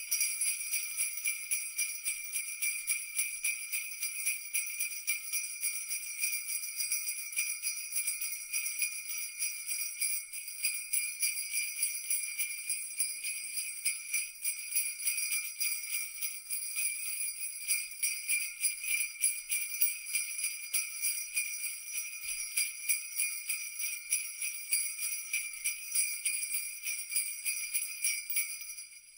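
Jingle bells shaken continuously in a dense, rapid jingle of high ringing tones, stopping near the end.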